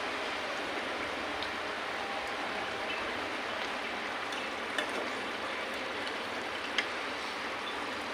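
Thick taro-stolon and shrimp curry bubbling and sizzling in a pot on the stove, a steady hiss as the sauce cooks down, with a couple of faint clicks.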